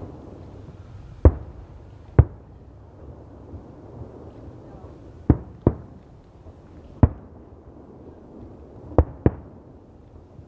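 Fireworks going off: seven sharp bangs at irregular intervals, two of them close pairs, over a low background murmur.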